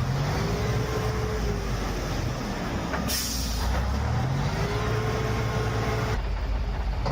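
Ural truck engine revving hard twice, each time rising and then holding before it drops back, as the truck strains to climb out of an icy stream. A short hiss comes about three seconds in.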